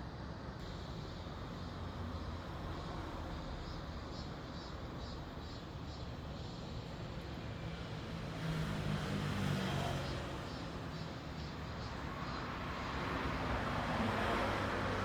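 Road traffic ambience: a steady low rumble that swells as vehicles pass about eight seconds in and again near the end. Faint, rapid, high chirping repeats through the first half.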